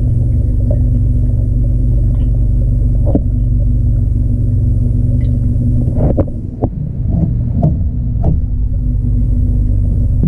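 Loud, steady low rumble and hum of an aquarium's water pump and air-bubble stream, heard through an underwater camera. One sharp knock comes about three seconds in, and a cluster of sharp knocks follows in the second half.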